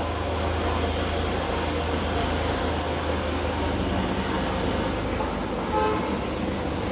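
Steady background hum and hiss with no clear events: continuous room or machine noise.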